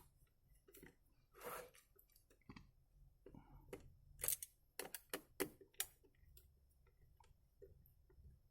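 Faint, scattered small clicks and ticks of a screwdriver and plastic parts as two small screws are taken out of a headset's housing, busiest a little past the middle.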